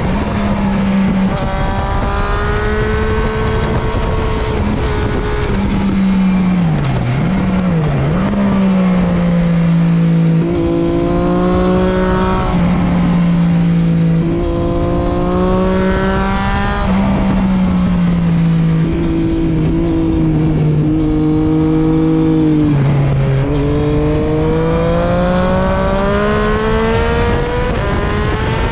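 Triumph 675's inline three-cylinder engine being ridden hard on track. The revs climb and drop through the gears, with quick blipped downshifts about a quarter of the way in.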